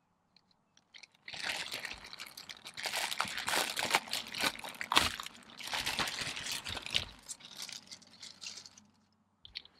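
Crinkling and rustling of handled packaging and bungee cords, with a scatter of small clicks, starting about a second in and dying away near the end.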